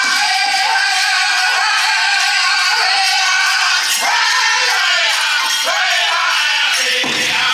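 Powwow drum group singing: a chorus of high-pitched voices over a big drum. The drumbeat is soft through most of it and comes back strongly about seven seconds in.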